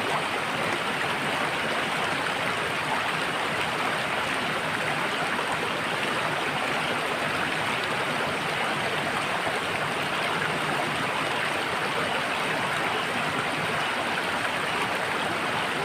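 Running water rushing steadily, like a stream or a flowing spout, with no breaks or changes.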